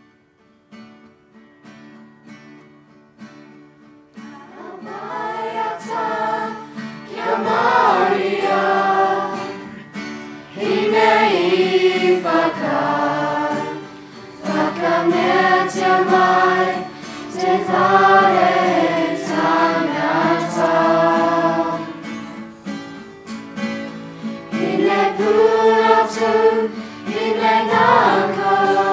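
A children's school choir singing together. A quiet instrumental opening plays first, and the voices come in about four seconds in and carry on in phrases with short breaks.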